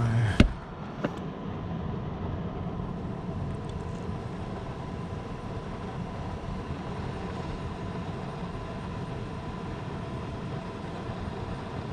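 HVAC air handler's blower running steadily in emergency-heat mode, with a sharp click about half a second in.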